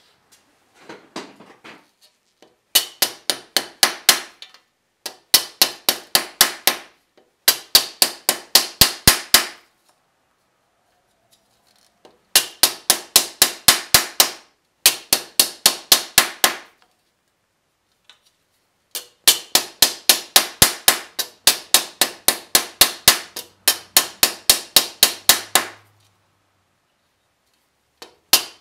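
A mallet striking a copper strap laid over a steel stake clamped in a vise, bending it into a curve. The strikes come in quick runs of about six sharp metallic knocks a second. Each run lasts a second or two, with short pauses between runs.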